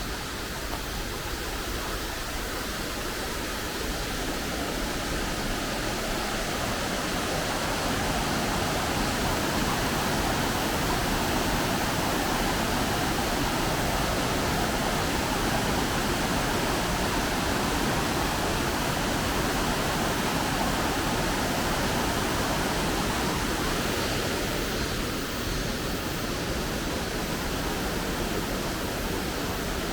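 Rushing water of a forest stream, a steady hiss that swells a few seconds in and eases a little near the end.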